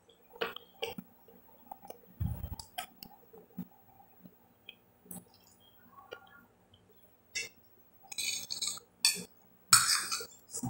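Close-up eating sounds of boiled chicken eaten by hand: chewing, lip smacks and finger sucking, scattered small clicks, and a low thump about two seconds in. Near the end a spoon scrapes and clinks against the glass plate.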